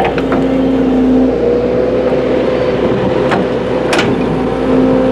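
Excavator (trackhoe) working hard lamproite ore: its diesel engine and hydraulics run under heavy load with a steady whine, and the bucket teeth knock sharply on rock twice, about three and four seconds in.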